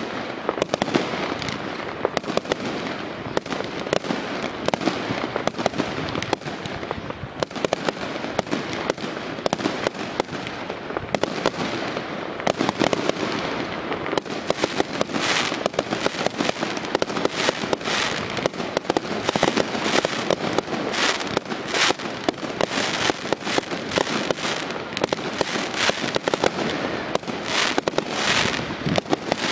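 Aerial fireworks going off without a break: a dense crackle with many sharp bangs of bursting shells, the bangs coming thicker and louder from about halfway through.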